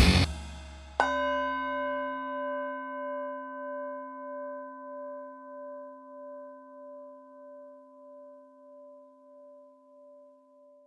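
Rock music cuts off at the start, then about a second in a single struck bell rings out, several tones sounding together and fading slowly with a steady wavering beat.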